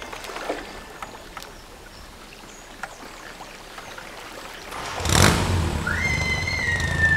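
Faint outdoor background with a few scattered clicks, then about five seconds in the noise of street traffic comes up, and a single high drawn-out tone rises, holds and slowly sinks.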